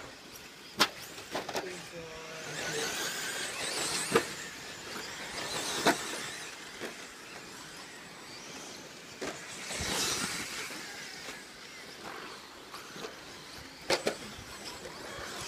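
Vintage 2WD 1/10-scale electric RC stadium trucks with modified motors racing on a dirt track. Motor whine and tyre hiss swell and fade as the trucks pass, with several sharp clacks from trucks landing and striking the track.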